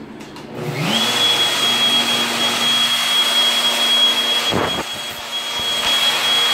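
A table-mounted wood router starting up about a second in, its pitch rising quickly to a steady high whine, then running at speed as a slingshot blank is fed against the bit.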